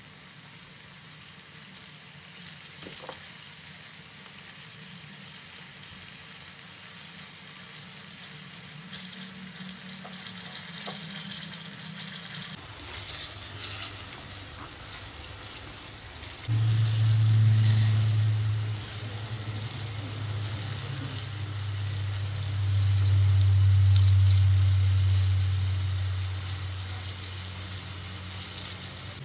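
Coated chicken pieces deep-frying in a wok of hot oil: a steady crackling sizzle. About halfway through, a low hum comes in and swells twice, louder than the frying.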